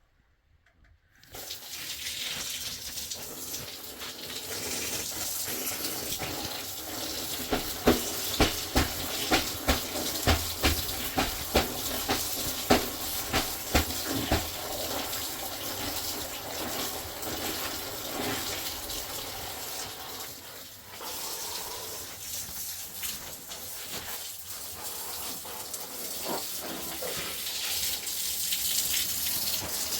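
Water running or pouring steadily, starting about a second in, with a run of sharp knocks in the middle.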